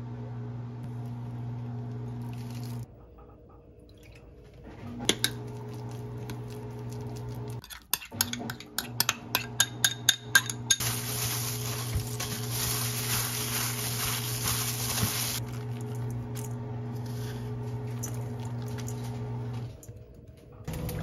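Kitchen clatter of dishes and cutlery clinking, with a quick run of clinks about halfway through, over a steady appliance hum; a steady hiss runs for about five seconds after the clinking.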